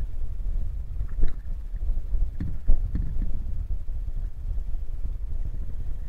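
Paddling a plastic kayak: a steady low rumble of wind and water on the microphone, with a few sharp knocks bunched between about one and three seconds in.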